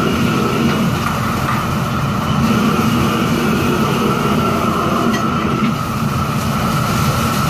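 Steady loud rushing noise of a commercial gas wok range at work, with its extractor hood running, carrying a steady high hum over a low rumble.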